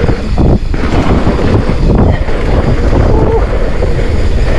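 Wind buffeting a mountain-bike rider's camera microphone at speed: a loud, steady, rumbling rush of air with no clear tones.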